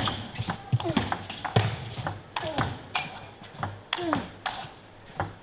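Table tennis rally: a celluloid ball clicking off the bats and bouncing on the table, about two clicks a second, with short falling squeaks from the players' shoes on the court floor.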